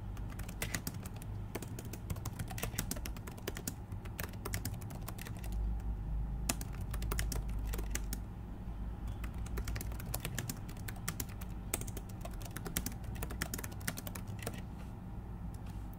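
Typing on a computer keyboard: quick, irregular runs of keystrokes broken by a couple of short pauses.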